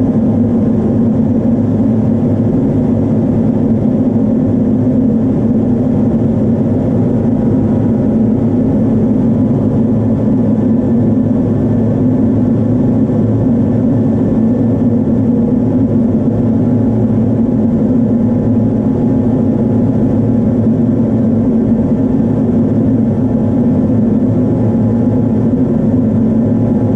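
Steady, loud drone heard inside an A-10 Thunderbolt II's cockpit in flight: its twin TF34 turbofan engines and the airflow over the canopy, with a faint steady whine above the low rumble.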